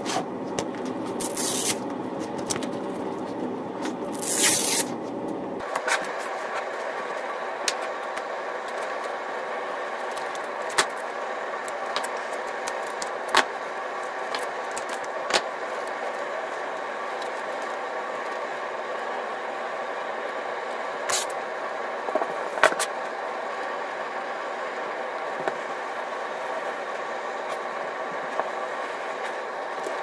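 Hook-and-loop strips and sanding discs being handled: two short rasping rips in the first five seconds, then scattered light clicks and taps, over a steady background hum.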